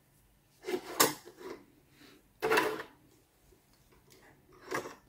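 A plastic hair claw clip and a scrunchie being handled and clipped onto a webbing belt: three short bouts of clacking and rustling, with a sharp click about a second in, another bout about halfway, and a shorter one near the end.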